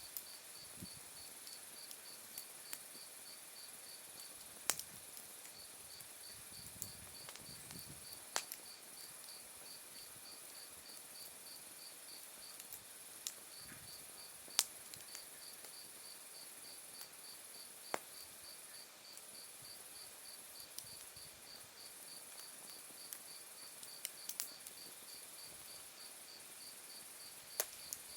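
Autumn night insects singing: crickets, one chirping in an even pulse of about four a second and another trilling continuously higher up, with firewood in an open fire popping sharply now and then.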